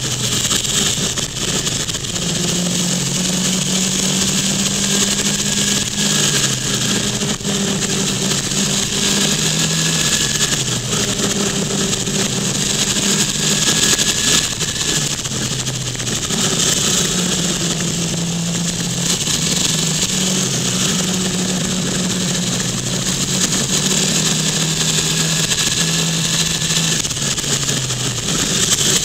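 Motorcycle engine running at speed, its pitch stepping up and down several times as the revs change through the bends, under a steady loud rush of wind on the microphone.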